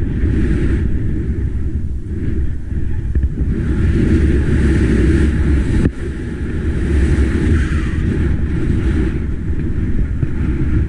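Wind buffeting the microphone of a body-mounted action camera during a fast powder-ski descent: a steady, loud rumble, with the hiss of skis running through snow swelling and fading over it. There is a brief break about six seconds in.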